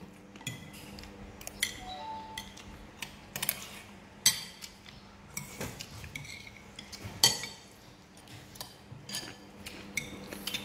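Metal spoons clinking and scraping against ceramic bowls and plates as people eat soup and rice, in irregular clinks with the sharpest ones about four and seven seconds in.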